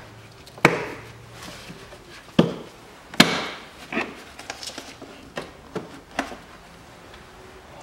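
Irregular sharp knocks and clicks of hard plastic as the air intake duct and air-filter housing of a Hyundai Accent engine are worked loose by hand; the loudest knock comes about three seconds in.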